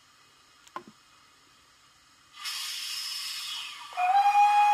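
Steam locomotive sounds for a GWR 57XX pannier tank, played by a model locomotive's Zimo DCC sound decoder through a small sugar-cube speaker: a short click about a second in, then a steady hiss of steam from a little past halfway, and near the end a steady whistle blast over the hiss, the loudest sound.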